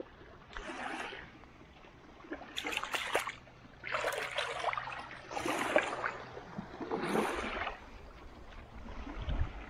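Small waves washing in over sand and shingle at the water's edge, about five separate rushes each lasting under a second.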